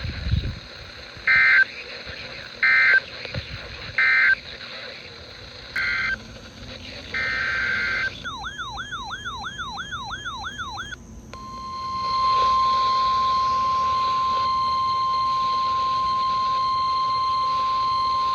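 Emergency Alert System tones: several short bursts of digital data squawk (the SAME header), then about three seconds of a fast warbling alert tone, then the steady single-pitch 1050 Hz NOAA Weather Radio alert tone held for about seven seconds.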